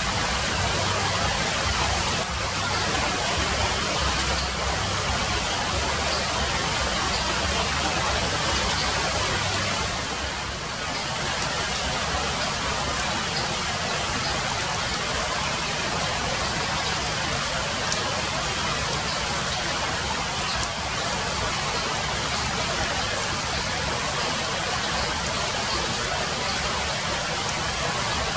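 Steady hiss of rain falling on foliage, with a low rumble underneath.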